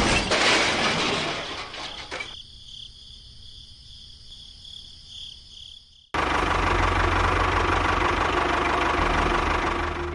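A loud hiss fades away over the first two seconds. About six seconds in, a small motor starts abruptly and runs steadily with a low hum.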